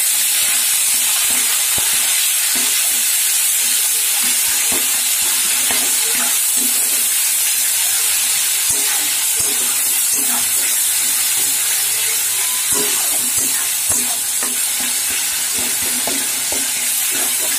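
Onion paste frying in hot mustard oil, a steady sizzle, while a metal spatula stirs it and scrapes and taps against the metal kadai again and again.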